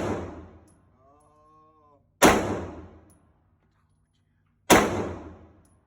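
9mm handgun shots fired slowly, one at a time, about two and a half seconds apart. Two sharp reports fall in the middle, each ringing out over about a second, and the start holds the fading tail of the shot before.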